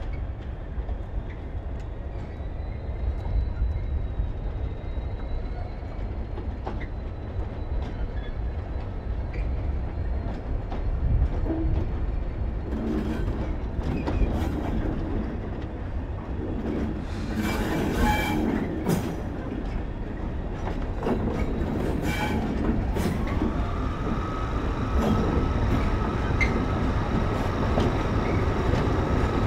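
Class 73 electro-diesel locomotives and tank wagons rolling slowly through a yard: a steady low engine-and-wheel rumble, with bursts of wheel clatter over pointwork around the middle. A high-pitched wheel squeal sets in near the end.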